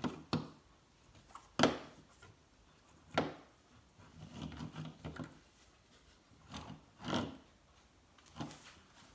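LEGO gorilla figure built from plastic bricks being walked and knocked on a tabletop: several separate knocks, the loudest about one and a half and three seconds in, with soft scraping and rattling of the bricks in between.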